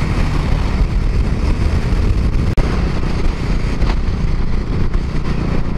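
Wind rushing hard over the microphone of a riding motorcycle, with the Bajaj Dominar 400's single-cylinder engine running steadily beneath it at cruising speed. The sound cuts out for an instant about halfway through.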